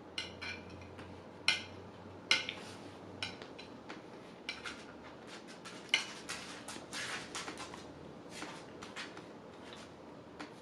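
Cutlery clicking and scraping against a plate while eating: a string of irregular sharp clicks, the loudest about a second and a half in, just after two seconds and around six seconds.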